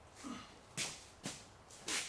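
Four quick swishing rubs, about two a second, as a strip of isolator material is slid and pressed around on sticky adhesive.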